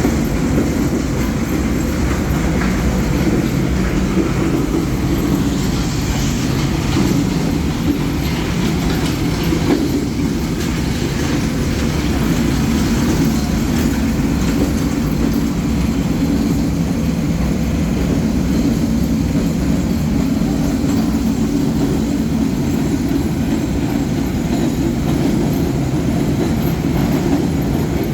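4R Raymond roller mill running under load, a loud, steady, low-pitched machine noise.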